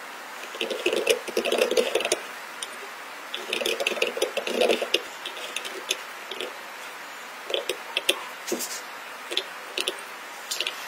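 Steel seal-carving knife cutting into a seal stone: quick scratchy chipping strokes, heard as two dense runs of rapid clicks in the first half, then sparser single clicks.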